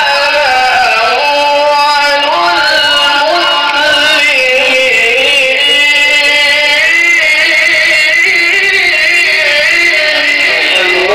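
A male qari reciting the Qur'an in the melodic tilawah style, drawing out one long ornamented phrase whose pitch wavers, dips and climbs without a break.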